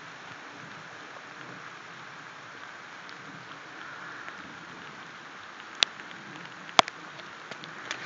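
Steady hiss of heavy rain falling, with two sharp clicks about six and seven seconds in.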